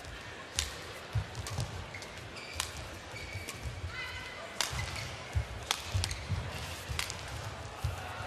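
Badminton rally: sharp racket strikes on the shuttlecock about every second or two, with court shoes squeaking on the court mat and the dull thumps of players' footwork.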